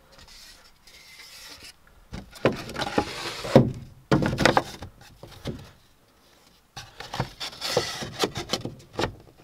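Thin wooden boards being handled and test-fitted: wood knocking and rubbing on wood in three spells of clatter, with a short silence a little past the middle.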